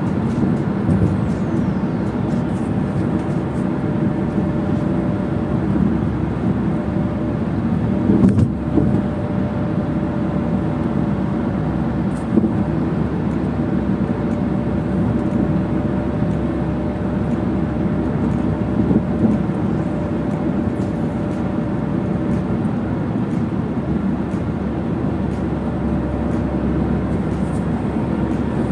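Car driving steadily, a continuous rumble of tyre and engine noise heard from inside the cabin, with a brief knock about eight seconds in.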